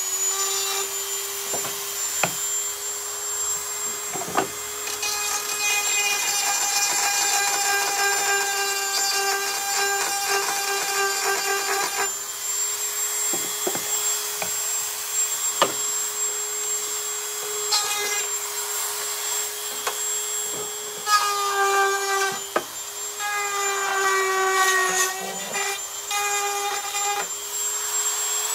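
Dremel rotary tool with a grinder tip running at a steady high speed, grinding built-up old glue out of a wooden drawer joint. A rougher grinding rasp comes and goes whenever the bit is pressed into the glue, and the motor winds down at the very end.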